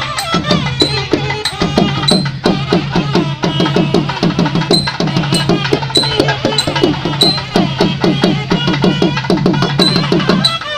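Kerala temple procession percussion: drums beaten in fast, dense rolls, with a sharp high accent on a steady beat a little less than twice a second.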